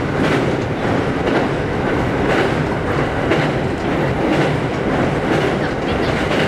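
Train running on rails: a steady rumble with regular clickety-clack from the wheels passing over rail joints.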